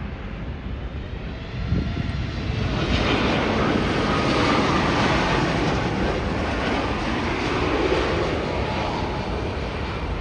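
Boeing 787 Dreamliner jet engines passing low overhead on final approach with landing gear down: a loud, steady jet engine noise that builds about two seconds in and stays at its loudest as the airliner goes over.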